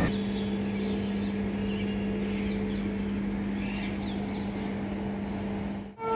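Birds chirping in short, repeated falling calls over a steady low hum, with no wheel noise from the slowly moving passenger train.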